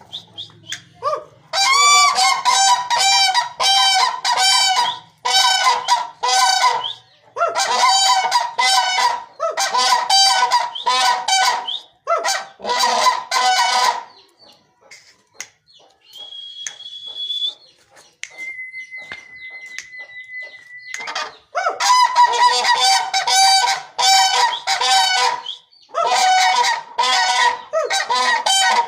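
Cranes calling: bouts of loud, rapidly repeated trumpeting calls. The calls pause in the middle, where two steady whistle-like tones sound briefly, a higher one and then a lower one, before the calling resumes.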